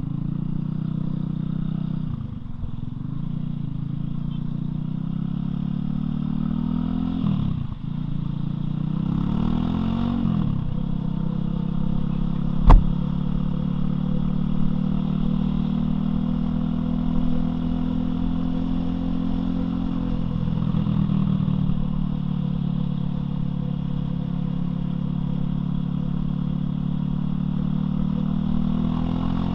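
Loncin LX250-12C motorcycle engine running under way, its pitch dropping and climbing again several times as the rider shifts gears and changes speed. A single sharp knock about 13 seconds in.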